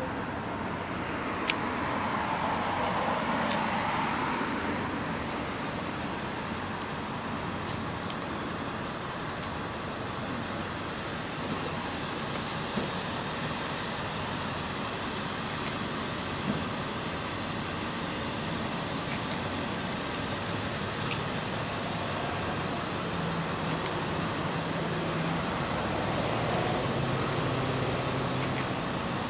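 Road traffic noise: a steady hum of vehicles on the highway, with vehicles passing and swelling louder about two to four seconds in and again near the end, where a low engine drone comes through.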